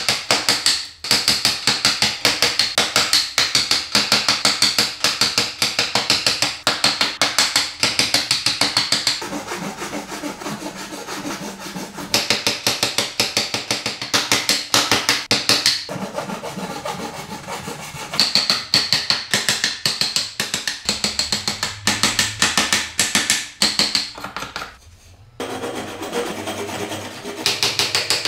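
Hand sawing through hardwood: quick back-and-forth saw strokes in several bouts, broken by short pauses and quieter stretches.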